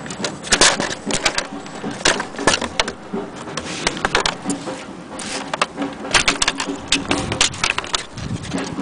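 Vintage Erika portable manual typewriter clicking as it is typed on: sharp, irregular strikes coming in quick clusters.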